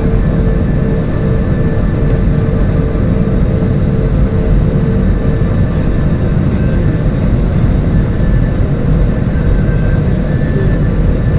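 Steady engine and airflow rumble of an airliner heard inside the passenger cabin, with a faint steady hum over it.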